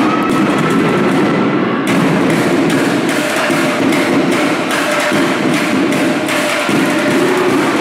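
A step team stomping and clapping in unison on a wooden gym floor: a fast, continuous run of loud thuds and claps.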